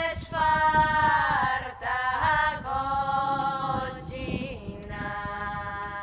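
Background music: a voice singing long held notes that slide in pitch, with little or no accompaniment.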